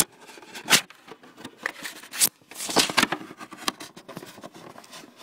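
Packaging being handled and torn by hand: a run of short, irregular rustling and tearing noises.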